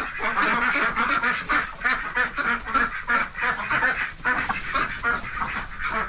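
A backyard flock of chickens and ducks calling over one another in the coop, a steady run of short calls several times a second.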